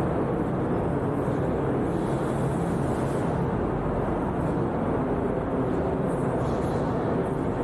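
Steady low rumble of vehicle engines with a faint hum, holding at an even level, and a few faint hisses above it.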